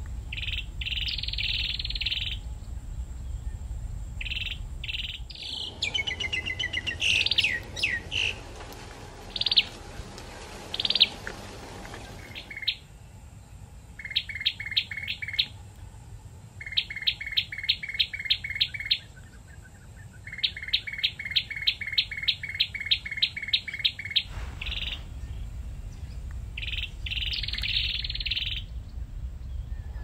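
Cambodian tailorbird singing: long runs of sharp, evenly repeated notes, about four a second, through the second half. Before them come scattered short chirps, a few gliding whistles and single loud notes.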